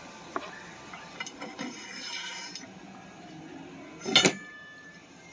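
Metal clinks from aluminum extrusion pieces, brackets and tools being handled: a few light clicks and a brief scrape, then one loud ringing clank about four seconds in.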